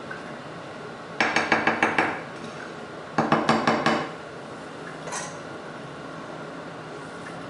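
A kitchen utensil clinking rapidly against a dish in two short bursts about a second apart, each of about seven quick strokes.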